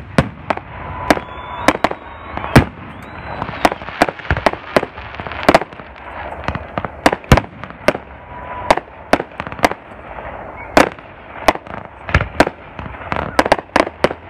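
Aerial fireworks bursting in quick, irregular bangs, two or three a second, with crackle in between and a thin whistle now and then.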